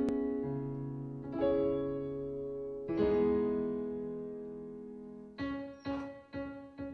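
Sampled piano played on a keyboard: slow chords that ring and fade, with new chords struck about a second and a half in and again about three seconds in. Near the end come four short detached chords.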